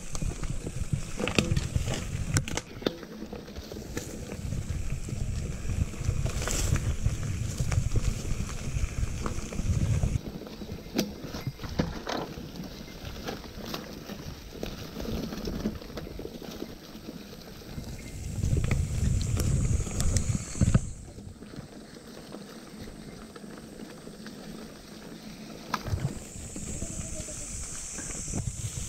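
Giant Anthem mountain bike ridden along a rough trail: tyres rolling over the ground, with scattered knocks and rattles from the bike. Wind rumbles in gusts on the chest-mounted GoPro's microphone, strongest at the start, again about two-thirds of the way in and near the end.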